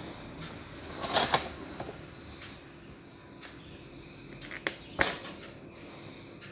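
Hard clicks and rattles of small parts being handled during a toaster repair, with a loud cluster about a second in and two sharp knocks near five seconds in.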